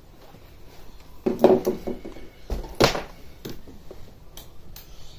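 A short clatter of knocks about a second in, then a heavier knock with a dull thump, followed by a few light single clicks, in a small room.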